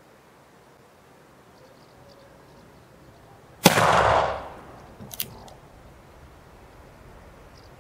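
A single black-powder shot from an original 1863 Remington New Model Army .44 cap-and-ball revolver, loaded with a paper cartridge of 24 grains of 2F powder behind a Johnston & Dow bullet. The shot is a sharp report with a short ringing tail, and a quick pair of sharp clicks follows about a second and a half later.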